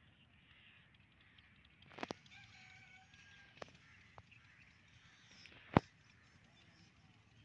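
A faint rooster crowing once, about a second long, a couple of seconds in. Several sharp clicks sound across the stretch, the loudest about three-quarters of the way through.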